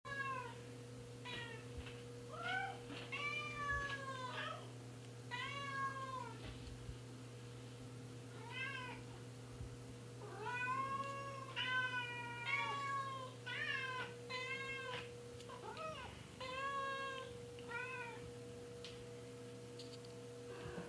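Cats meowing over and over, about twenty arched meows that rise and fall in pitch, some overlapping, with a steady low hum underneath.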